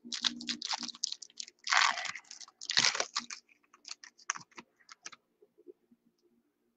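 Trading cards and their plastic packaging being handled: irregular clicks and crinkling rustles, with two longer crinkles about two and three seconds in, dying away in the second half over a faint steady hum.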